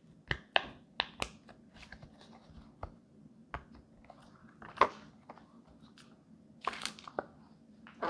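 Silicone pop-it fidget toy bubbles being pressed in by fingers, giving a scattered series of soft, short pops at uneven spacing, about a dozen in all.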